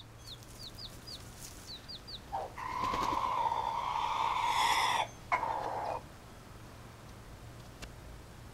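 A chick peeps in short, high, repeated cheeps. About two and a half seconds in, a rooster crows once, a long call of about three seconds that ends in a short final note.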